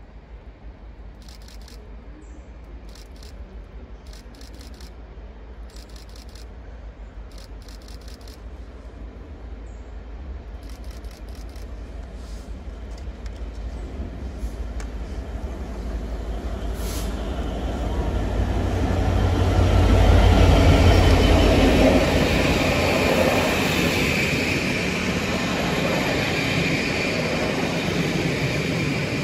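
A train approaching along the line, its rumble and rail noise growing steadily louder for about twenty seconds, then holding loud as it passes.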